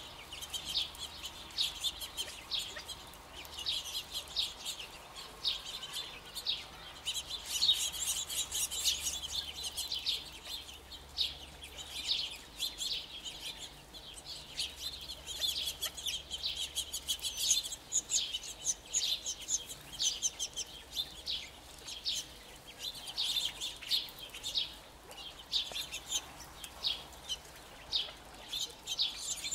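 A flock of California quail feeding, giving a continuous patter of short, high chips and clucks.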